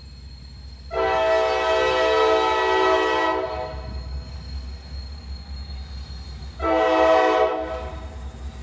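Horn of a passing main-line freight train sounding a chord: one long blast of about two and a half seconds, then a shorter blast about three seconds later. The low rumble of the moving train runs underneath.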